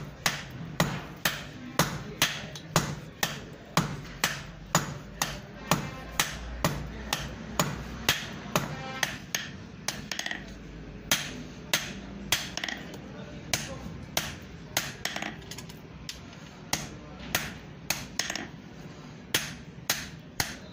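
Hand hammer striking red-hot iron on a steel anvil in steady, evenly spaced blows, about two a second: hand forging, drawing the bar out into a blade.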